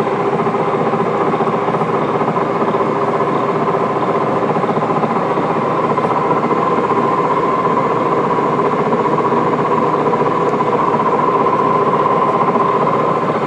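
Monarch engine lathe running under power, its headstock gearing and drive giving a steady machine hum with a held whine.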